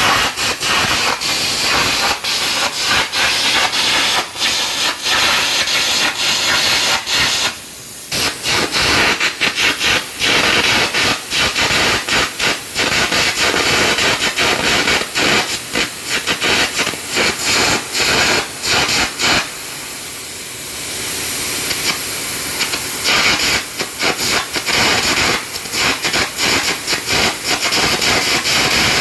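Air carbon arc gouging: a loud hissing air jet with dense crackling and popping from the arc. It breaks off briefly about eight seconds in. Around twenty seconds in the crackling stops for a couple of seconds, leaving a smoother steady hiss, and then starts again.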